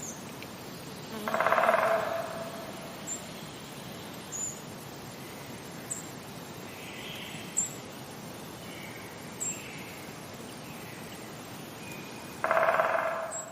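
Woodpecker drumming on wood: two rapid rolls of about a second each, one near the start and one near the end. Between them runs a steady forest background with a few faint bird calls.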